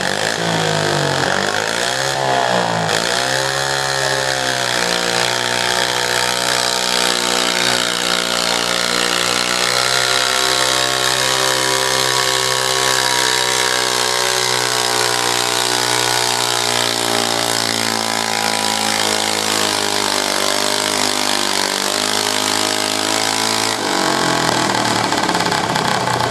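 Modified garden pulling tractor's engine revving up and down a few times, then held at high revs as it drags a weight-transfer sled down the track. The revs drop off near the end as the pull ends.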